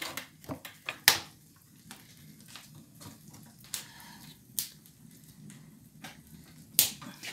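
Iron asador rack clinking and knocking against the table and hands as a raw beef flank is hooked onto it: a handful of scattered sharp clicks, the loudest about a second in and near the end.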